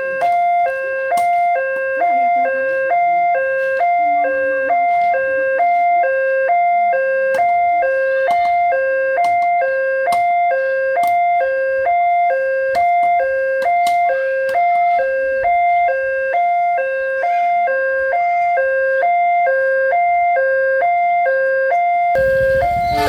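Electronic warning siren of an Indonesian railway level crossing, alternating steadily between a lower and a higher note. Near the end a loud rushing noise comes in.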